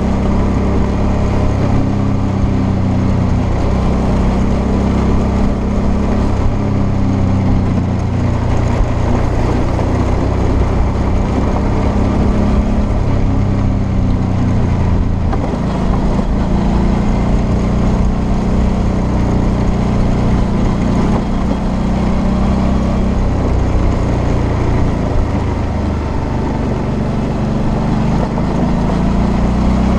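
Suzuki V-Strom 650's V-twin engine running steadily at riding speed on a gravel track, its revs rising and falling a little, with wind and tyre noise over the helmet-mounted microphone.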